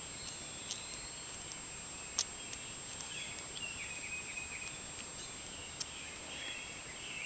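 Scattered light clicks and ticks of a lock pick and tension wrench working the pin tumblers of an old Federal Lock 100G padlock as pins are set, with faint bird chirps behind.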